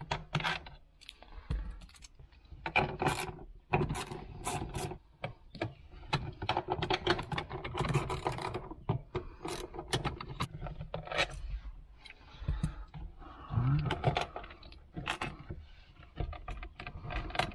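Irregular clicks, knocks and scrapes of plastic and metal as wiring-harness connectors are pulled from a 2009 Toyota Corolla's manual shifter assembly and the assembly is worked loose.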